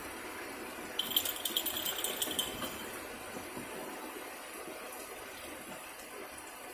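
Steady hiss of rain, with a rapid high-pitched rattling for about two seconds starting about a second in.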